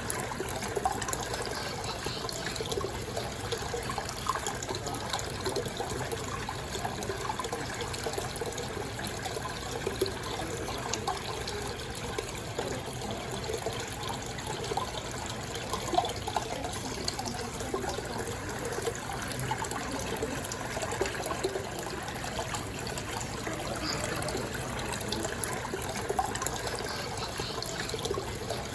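Water running and bubbling steadily in an aquarium, with small irregular splashes and pops; one pop about halfway through is a little louder.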